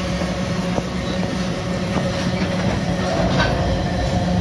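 Freight train of loaded hopper wagons rolling past: steady rumble and rattle of steel wheels on the rails with a low hum. A higher steady whine joins about three seconds in.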